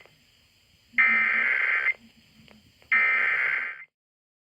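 Emergency Alert System SAME header: a burst of warbling digital data tones ends at the start, then the header repeats twice more, each burst about a second long with a second of quiet between, and stops near the end. These are the encoded bursts that open an EAS Required Monthly Test alert.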